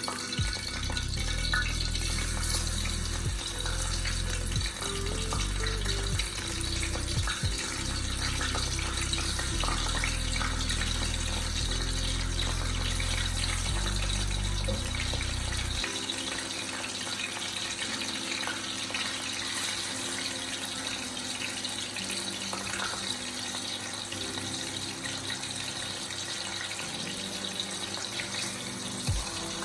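Water running steadily from a tap into a sink, over background music whose bass line drops out about halfway through.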